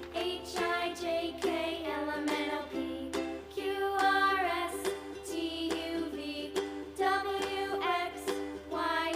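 Bright children's background music with plucked ukulele-like notes and a sung or melodic line.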